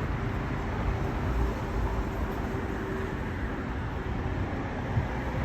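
Aeroplane flying overhead: a steady, low engine rumble with a faint held tone in it.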